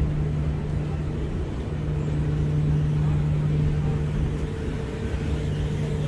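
Escalator running: a steady low mechanical hum with a constant drone.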